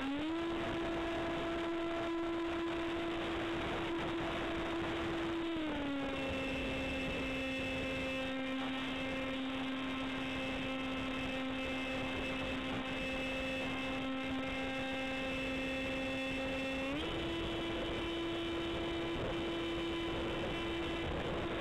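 Electric motor and propeller of an F-27Q Stryker flying wing, heard from the camera on board: a steady whine that drops in pitch about five seconds in as the motor slows, then rises back up a few seconds before the end.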